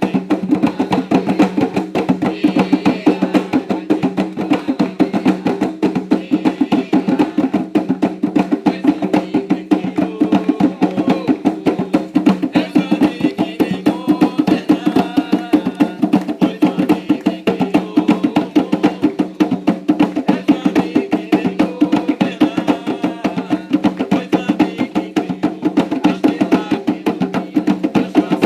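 Umbanda ritual hand drumming, a fast, steady, unbroken beat of drum strokes with a sharper wood-like click in the rhythm.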